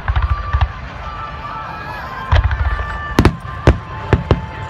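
Aerial fireworks shells bursting: low rumbling booms near the start and again about halfway, then four sharp cracking bangs in quick succession in the second half. Music plays underneath.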